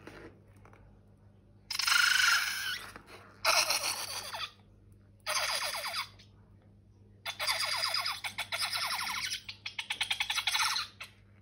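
A rubber balloon sputtering and squeaking in four bursts of fast pulses, the last burst about three and a half seconds long.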